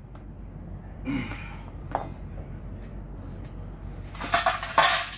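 A couple of light knocks, then a loud clatter of small metal parts or hand tools clinking together for about a second near the end.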